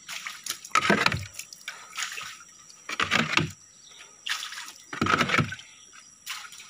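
River water lapping and slapping against the hulls of moored wooden boats, a splash and slosh about every two seconds.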